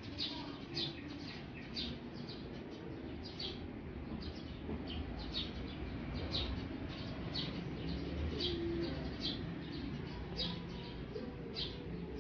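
A small bird chirping over and over, short high chirps about two or three a second, over a low steady background rumble.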